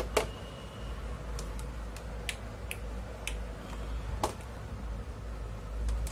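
Scattered sharp clicks as a handheld digital multimeter's rotary selector is turned and its test leads are handled, over a steady low hum.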